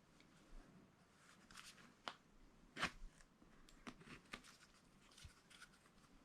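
Faint plastic clicks and rustling from handling a body camera's crocodile clip as it is slid through the slot of a magnetic mount, with the sharpest click a little under three seconds in.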